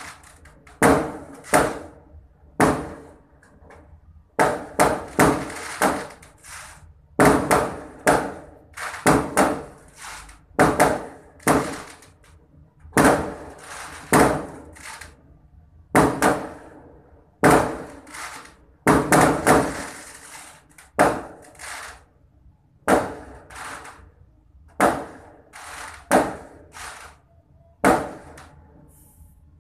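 Aerial fireworks going off: a long run of sharp bangs, about one or two a second and often in quick pairs or threes, each dying away in a short echo, with brief lulls between volleys.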